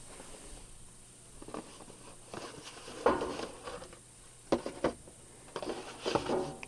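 A cardboard belt box and its packaging being handled and opened: rustling, with a couple of sharp clicks about four and a half and five seconds in.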